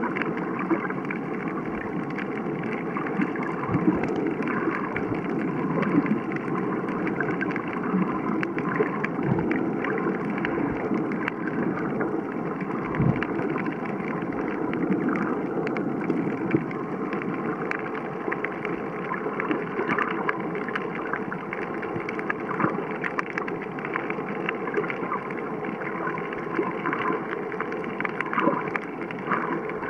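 Underwater ambience on a coral reef picked up by a submerged camera: a steady, muffled rushing hiss with many small clicks and crackles scattered through it and a few soft low thumps.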